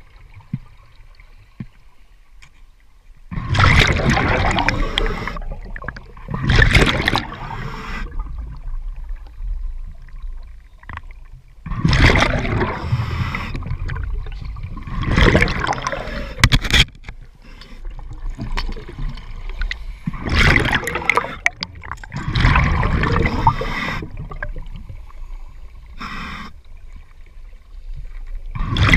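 Scuba diver breathing on a regulator, heard underwater: about eight bursts of exhaled bubbles rushing past, every few seconds, with quieter gaps between. The first three seconds are nearly quiet before the bursts begin.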